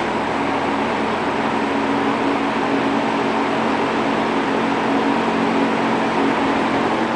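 Vintage Homart (Sears) three-speed box fan running steadily on high: an even rush of air with a low motor hum underneath.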